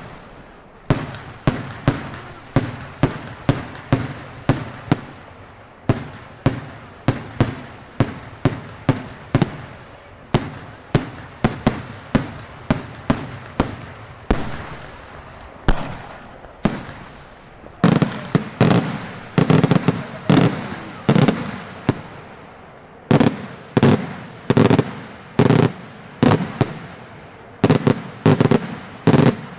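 Daytime fireworks display by Senatore Fireworks: a long run of sharp, loud bangs from bursting shells, about two a second, coming thicker and heavier about two-thirds of the way through and again near the end.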